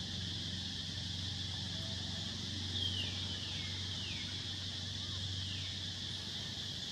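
Forest ambience: a steady high insect drone over a low hum, with a bird giving four quick falling whistles, starting about three seconds in.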